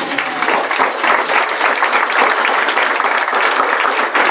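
Audience applauding: dense, steady clapping that starts right as the speaker finishes a sentence.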